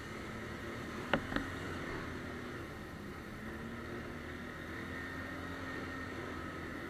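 ATV engine running steadily under way. About a second in there are two sharp knocks, a quarter second apart.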